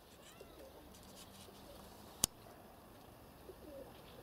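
Faint outdoor ambience with a few faint, short bird calls, broken by one sharp click about two seconds in, the loudest sound.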